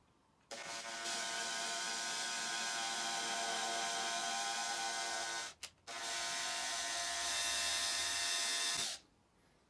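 Makita cordless drill running under load as it bores a hole through a steel drawer slide, a steady whine starting about half a second in. It stops for a moment after about five seconds, then runs again for about three seconds before stopping.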